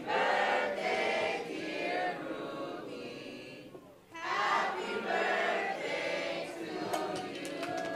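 A crowd of party guests singing a birthday song together, with a short break between lines a little under four seconds in.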